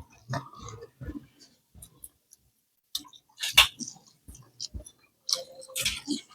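A person chewing fried chicken wings close to the microphone: irregular wet mouth clicks and bites, the loudest about three and a half seconds in and again near the end.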